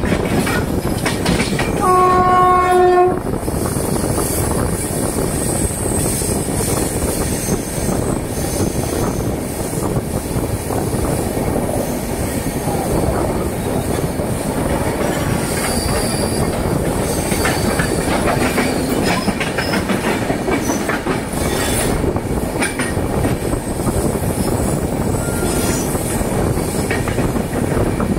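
Passenger express train running on the rails with a steady rumble and wheel clatter. A locomotive horn sounds once, for about a second, about two seconds in.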